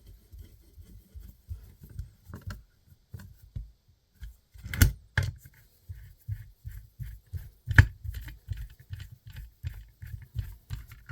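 Handling knocks as a DIY MDF bandsaw fence is fitted on and taken off the saw table: a run of soft bumps with two sharp knocks, about five and eight seconds in.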